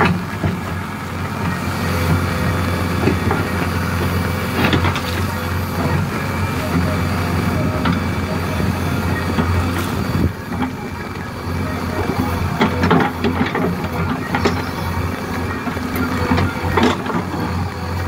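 JCB backhoe loader's diesel engine running steadily while it works, with occasional short knocks and clatters.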